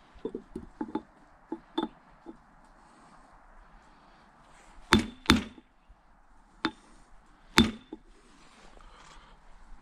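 Ball-peen hammer tapping a seal into place on a Cat E70B excavator lift cylinder part. A run of light taps comes first, then four sharper, louder metallic strikes with a brief ring, about halfway through.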